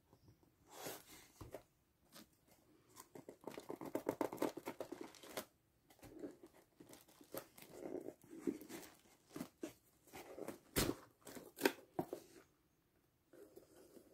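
Packing tape being peeled and torn off a cardboard box, with hands rubbing and tapping the cardboard. A run of quick rasping tears comes about four seconds in, and a couple of sharp clicks near the end.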